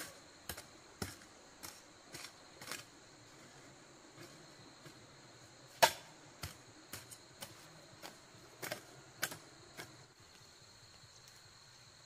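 A series of short, sharp knocks and taps at irregular intervals, one much louder about six seconds in, over a faint steady high-pitched hum.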